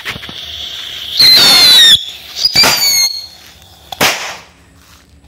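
A bundle of mini whistling rockets going off together from inside a tin can. A fuse hisses at first, then two shrill whistles follow, each falling slightly in pitch: one about a second in and one about two and a half seconds in. A single sharp bang comes about four seconds in.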